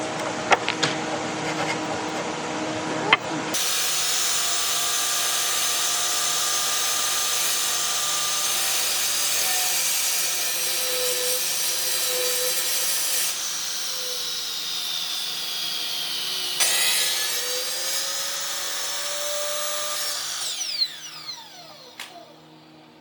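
Electric power tool working wood. It runs steadily with a whine that shifts in pitch as the load changes, then switches off about 21 seconds in and whines down.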